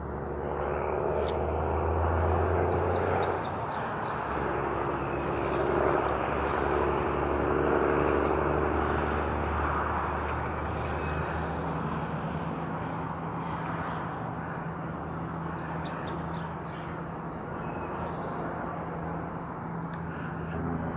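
Steady distant engine drone under open-air noise, with a low hum that holds throughout and a second hum that joins about halfway through. Faint high chirps come a couple of times.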